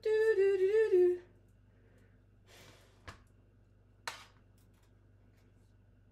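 A woman humming a short wavering tune for about the first second, then a few faint clicks and a soft scrape of knife work on a cutting board as a tomato is cut.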